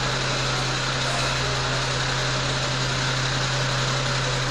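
Aerial ladder fire truck's diesel engine idling steadily with an even, deep hum while the truck manoeuvres slowly.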